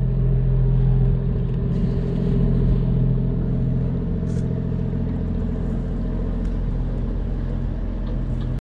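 Diesel engine of a commercial fishing boat passing close by, a steady low drone that eases off slightly over the second half.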